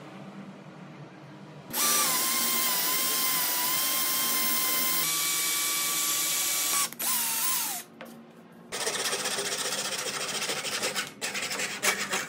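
Cordless drill running at speed with a steady motor whine as it bores into hardwood. It stops, gives a short burst that winds down, then drills on with a rougher rasping sound. Near the end come quick choppy strokes of a hand pull saw trimming dowels.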